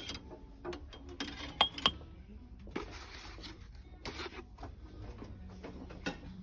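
Scattered light clicks and knocks from goods being handled on a shop shelf, the sharpest two close together a little under two seconds in, over a low steady background hum.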